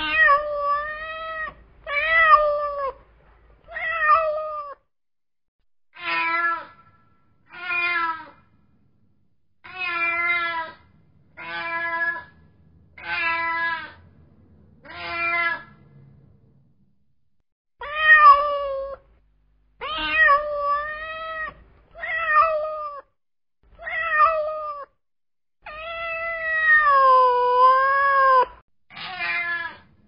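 A cat meowing over and over, about one meow every second, each one short and pitched. Just past the middle there is a short pause. Near the end comes one long, wavering meow.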